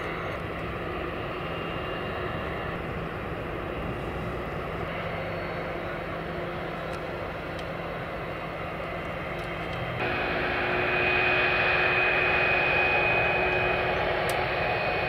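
Boeing 747 jet engines running steadily at taxi, a rumble with a hiss. About ten seconds in the sound changes abruptly to a louder, closer engine sound with a steady high whine.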